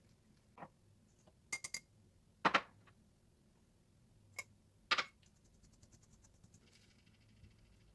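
Kitchen handling sounds: a few sharp clicks and knocks, a quick triple click about a second and a half in and the loudest knocks about two and a half and five seconds in, followed by faint rapid ticking.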